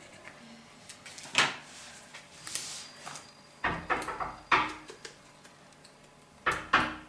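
Paper and cardstock being handled on a cutting mat: a few short rustles and light knocks, the loudest cluster about four seconds in and another near the end.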